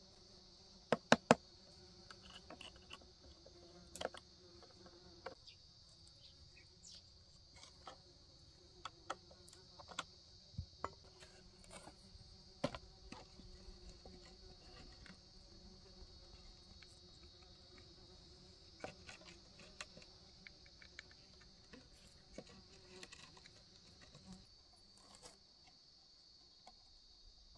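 Steady high chirring of insects, with scattered sharp clicks and knocks of wooden boards being handled and fitted together into a brick mould. The loudest are a quick cluster of knocks about a second in.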